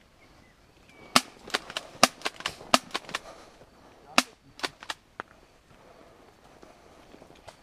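Airsoft gunfire: a quick, uneven string of about ten sharp cracks of single shots, then a few more about a second later.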